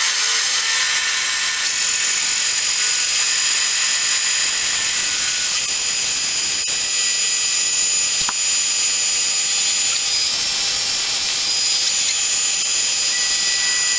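Metal lathe turning a bronze test bar at high spindle speed on a finishing cut: a steady high-pitched whine and hiss that cuts off abruptly near the end.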